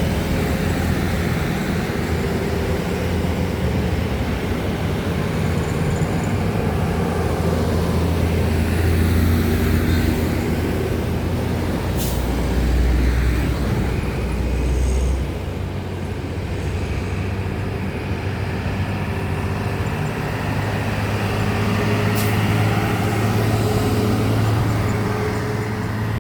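Heavy diesel trucks and buses running on an uphill road, their engines a continuous low drone that swells and shifts as vehicles pass. Two brief sharp high sounds stand out, about halfway through and near the end.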